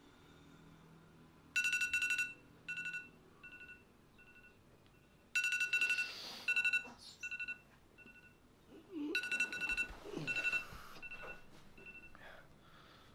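Phone beeping, a long two-tone beep followed by three shorter, fainter ones. The pattern starts three times, about every four seconds, like a phone alarm going off.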